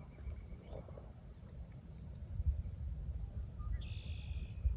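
Wind rumbling and buffeting on a phone microphone in an open field, with a short high-pitched call about four seconds in.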